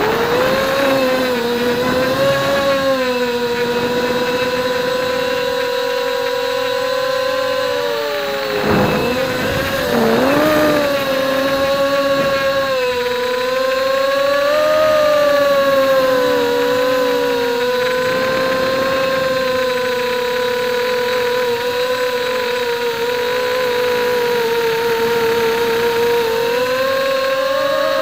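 Brushless motors and propellers of a carbon-fibre mini FPV multirotor in flight: a steady buzzing whine whose pitch wavers with the throttle, dipping sharply a couple of times about nine to eleven seconds in.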